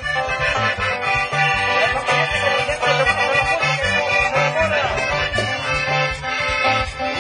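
Accordion-led Mexican dance-band music, with the bass alternating between two notes about twice a second in a steady beat.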